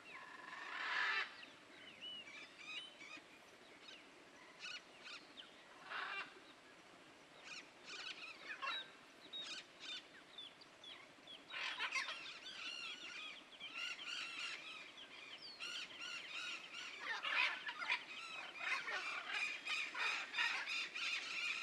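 Birds calling, with scattered short chirps and squawks that thicken into a steady chatter from about halfway through.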